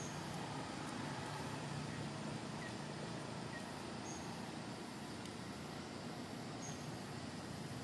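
Steady outdoor background rumble, with a few faint, short high chirps.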